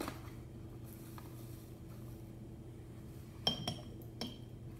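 Metal measuring spoon clinking a few times against a glass mason jar, with a short ringing after each tap, as a spoonful of sugar is tipped into the water. The clinks come about three and a half to four seconds in, over a faint steady hum.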